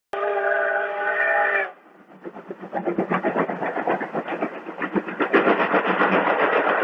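Steam locomotive whistle sounding a steady multi-tone chord for about a second and a half, then cutting off. It is followed by the locomotive's rapid chuffing and the clatter of the train, growing louder as it approaches and passes. This is on an old, band-limited film soundtrack.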